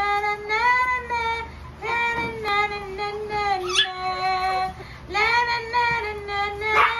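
Puppy howling: about four long, high, wavering howls one after another, with a short rising yelp about four seconds in.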